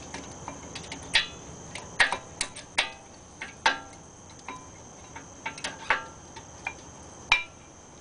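Irregular metallic clicks and clinks, some ringing briefly, as a new front brake pad with its shim is handled and fitted against the caliper bracket and its pad clips.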